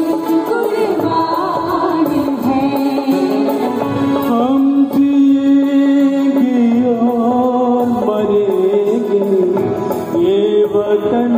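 Mixed choir of men and women singing together in long held notes through microphones, accompanied by a harmonium.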